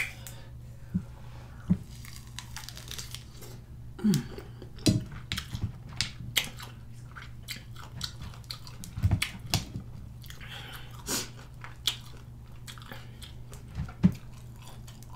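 Close-miked wet biting, sucking and chewing on lemon and lime wedges, with many short smacks and clicks at irregular intervals over a steady low hum.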